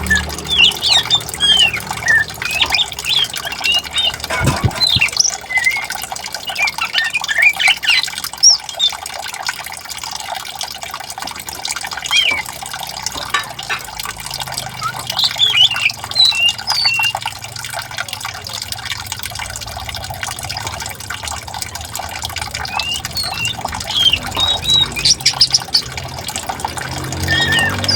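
Birds chirping and calling in short bursts over the steady rush of flowing water. The calls come in clusters, with a lull in the middle.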